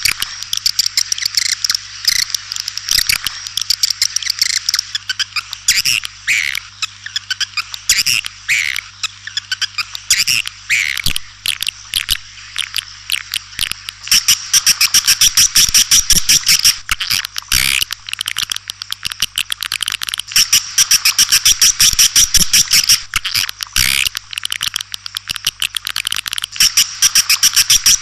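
White-nest swiftlets twittering in a rapid, dense stream of high chirps and clicks. Louder, thicker stretches come at intervals. This is a swiftlet call recording of the kind played in swiftlet houses to lure the birds in.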